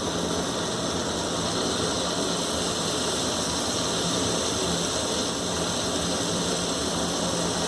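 Paneer cubes frying gently in butter in a pan on low flame: a steady, even sizzle over a constant low hum.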